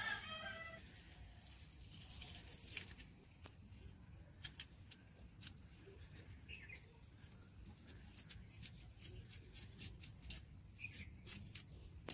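Knife blade scoring through a fresh banana leaf on a concrete floor: a quiet run of crisp, irregular clicks and ticks as the blade splits the leaf along its veins. A short pitched animal call, like a cat's meow, sounds right at the start.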